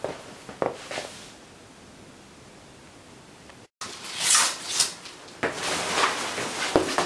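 Clear plastic protective bag rustling and crinkling as it is pulled up off a flat-screen TV, loudest in the second half. A couple of light knocks from handling come early, and the sound drops out briefly about halfway through.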